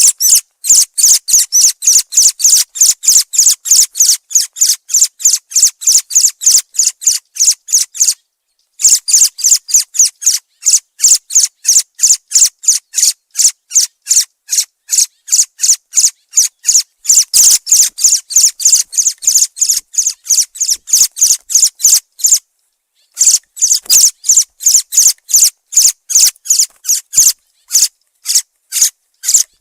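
Thrush call: a short, high-pitched note repeated evenly about three times a second, with two brief pauses, about eight seconds in and about twenty-two seconds in.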